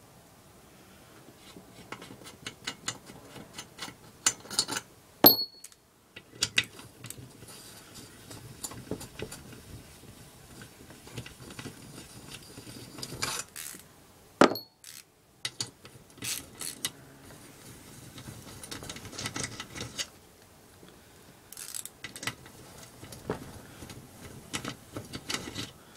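Hand tools working the head bolts out of an 8 hp Briggs & Stratton engine: a run of irregular metallic clicks and clinks, with two sharper clinks about five seconds and fourteen seconds in.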